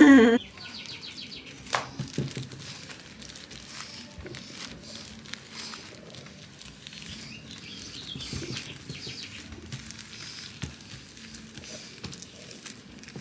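Faint rustling and crinkling of plastic sheeting as hands press and spread masa for tamales. Birds chirp in the background, with a quick run of repeated chirps just after the start.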